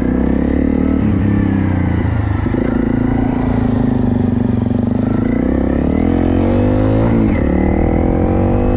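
Honda CRF250L dirt bike's single-cylinder engine running under way. The engine note dips about two seconds in, then climbs again as the throttle opens.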